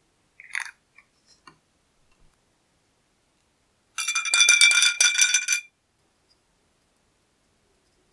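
Screw lid going onto a small glass bottle of orange juice, a short scrape and a few light clicks. About four seconds in, the capped bottle is shaken hard for under two seconds: a fast, loud clinking rattle with a ringing glass tone.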